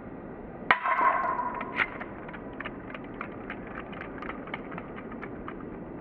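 A single sharp metallic clang about a second in, ringing on for about a second, followed by faint, scattered short ticks.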